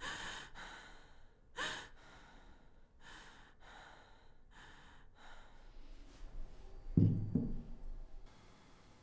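A woman breathing hard and unevenly, a string of short gasps and sighs, one sharper gasp about one and a half seconds in, then calmer. About seven seconds in, two short low thumps.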